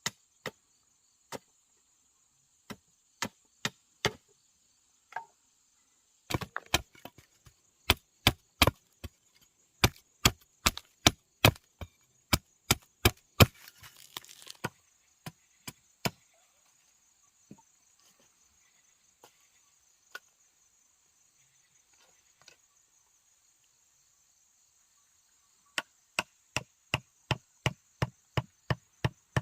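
Repeated sharp blows on wood: scattered strikes at first, a dense run of blows from about six seconds in, a lull with only a few faint knocks, then a steady run of about three strikes a second near the end. A steady high insect drone sounds underneath.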